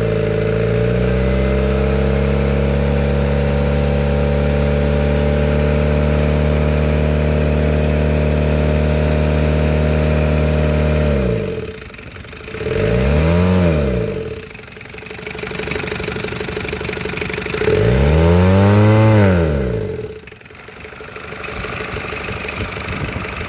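Ssangyong Korando's DC23 diesel engine held at a steady raised speed for about ten seconds, then dropping back. It is then revved up and down twice before settling to idle.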